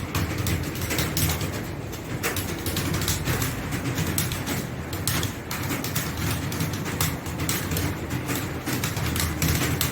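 Fast, continuous typing on a keyboard, several key clicks a second at a typing-test pace of about 82 words per minute, over a steady low hum.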